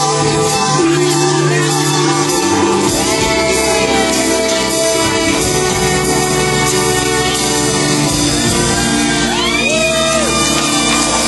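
A live band with a violin section playing a song, with singing, and shouts and whoops from the crowd.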